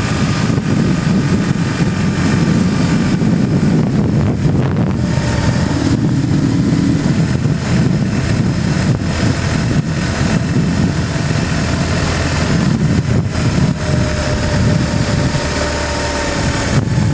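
BMW GS motorcycle running steadily at road speed, with wind rushing over the microphone.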